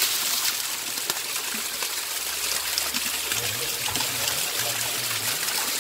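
A thin waterfall pouring down a rock face and splashing steadily onto wet stone, a constant hissing rush of falling water.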